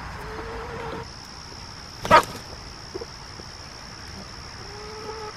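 Chickens calling: soft low calls near the start and the end, and one short, loud squawk about two seconds in.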